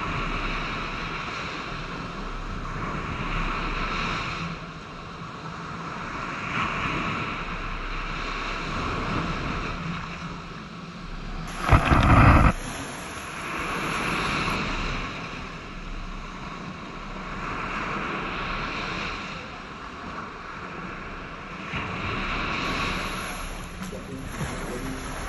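Small waves breaking on a sandy shore, the surf swelling and fading every few seconds, with wind rumbling on the microphone. About halfway through there is a brief loud rumble on the microphone.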